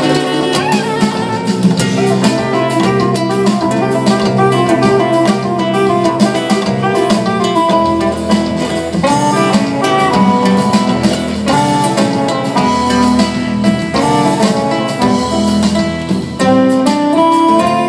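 Live band playing an instrumental passage, a guitar carrying the lead in quick runs of notes over bass and drums.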